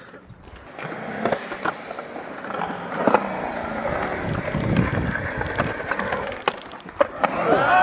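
Skateboard wheels rolling on a concrete bowl, with several sharp clacks of the board striking the concrete. Onlookers start shouting and cheering near the end.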